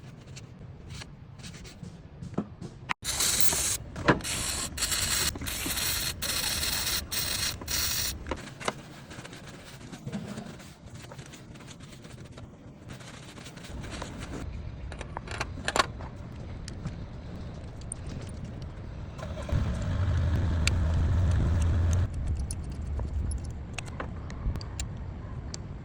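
Car being worked on: a few seconds of loud hissing broken by short gaps, scattered clicks and clatter, then a low steady engine-like rumble that is loudest for about two seconds near the end.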